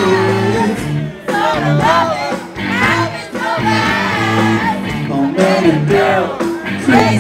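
Live rock band playing loudly with singing, and the crowd shouting along.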